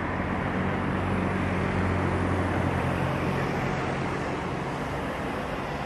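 Steady outdoor street noise with the low hum of a motor vehicle engine, a little stronger over the first few seconds.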